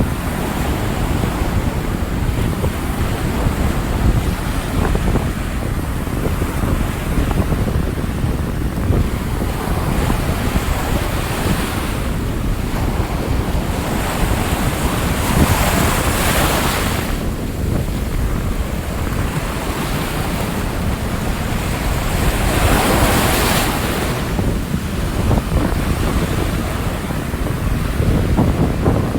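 Rough ocean surf: a continuous rumble of waves, with two bigger waves breaking loudly about halfway through and again near three quarters of the way. Wind buffets the microphone throughout.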